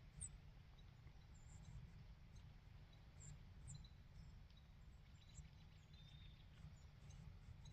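Near silence in the woods: a low steady rumble, with scattered faint, short, high chirps throughout.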